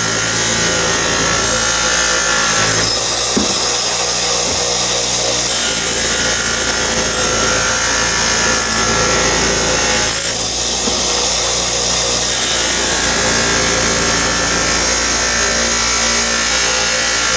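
Bench buffer running with the steel railroad-spike froe pressed against a compound-loaded buffing wheel, polishing it toward a mirror finish: a steady motor hum under a loud rubbing hiss. The rubbing changes about 3 and 10 seconds in as the piece is shifted on the wheel.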